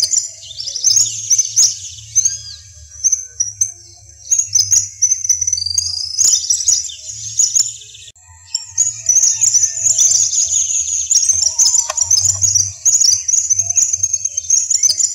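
Many small birds chirping and twittering in a dense, rapid run of high notes, with short lulls about four and eight seconds in.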